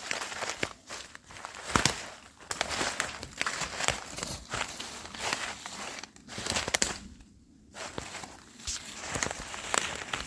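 Footsteps of a person walking through the woods, an irregular run of steps that pauses briefly about seven seconds in.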